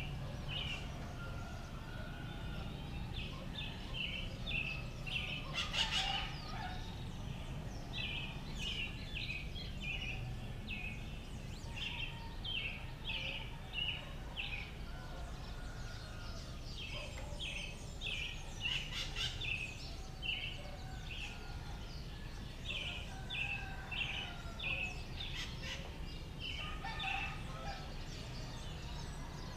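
Small birds singing in quick runs of short chirps, over and over, with a rooster crowing a few times, loudest about six seconds in, above a steady low background rumble.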